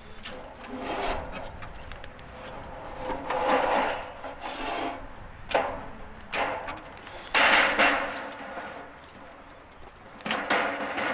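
Aluminum ladder scraping and knocking as it is slid up into place against a wooden barn wall, in several irregular scrapes with one sharp knock about halfway.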